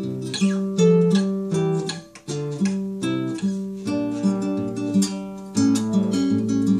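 Nylon-string classical guitar being played: a steady run of plucked notes and chords, with a short break about two seconds in.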